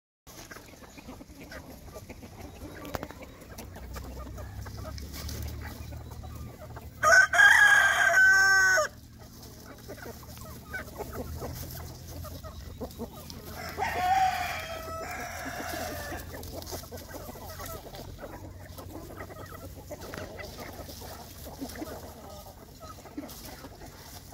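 Free-range chickens clucking as they feed, with a rooster crowing loudly for about two seconds, starting about seven seconds in. A second, fainter bird call comes about fourteen seconds in.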